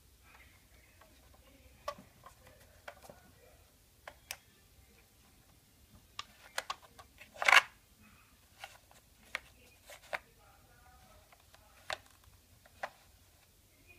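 Corrugated cardboard VR viewer being handled and turned on a tabletop: scattered light clicks and taps, with one louder, longer rub about seven and a half seconds in.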